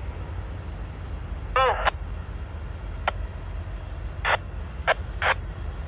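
Steady low rumble of diesel locomotives in a rail yard, with six short, sharp chirps scattered through it.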